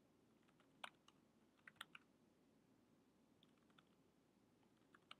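Faint, scattered keystrokes on a computer keyboard, a few irregular clicks over a near-silent room.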